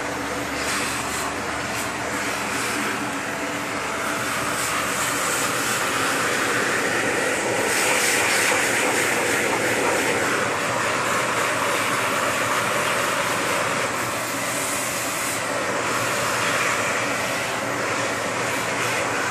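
Vacuum cleaner running steadily with its brush nozzle fitted, a continuous motor hum and rush of air that swells a little about halfway through.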